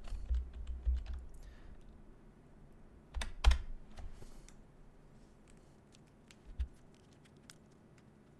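Keys pressed on a computer keyboard, each with a low thud: a quick cluster of presses in the first couple of seconds, two louder presses about three and a half seconds in, then a few faint clicks.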